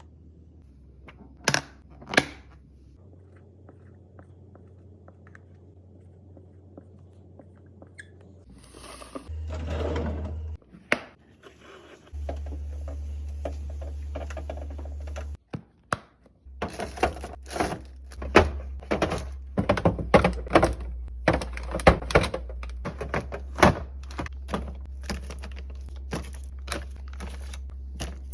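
Hard plastic and glass items being set down and slotted into a fridge while it is restocked: a string of sharp knocks, clicks and thunks, sparse at first and coming thick and fast in the second half.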